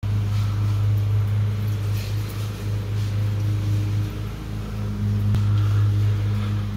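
A steady low mechanical hum from a running motor or engine, with a single sharp click about five seconds in.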